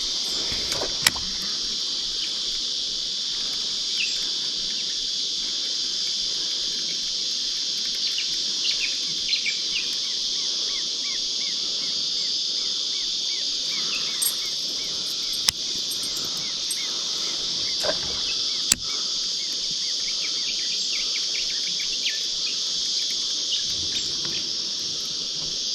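Steady, unbroken high-pitched chorus of insects, with a few sharp clicks about a second in, around fifteen seconds and around nineteen seconds.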